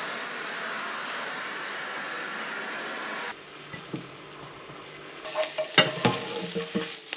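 A vacuum cleaner runs steadily with a high motor whine and cuts off suddenly about three seconds in. Then a spatula scrapes and knocks against a frying pan as food is tipped out onto a plate of rice, with a few sharp utensil clicks.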